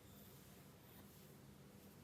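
Near silence: quiet room tone with a faint steady low hum.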